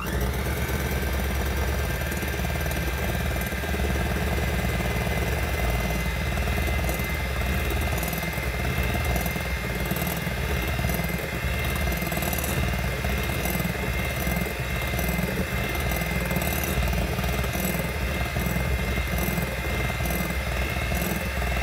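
Electric hand mixer switched on and running steadily at speed with a high motor whine, its beaters whisking egg yolks into stiffly beaten egg whites and sugar.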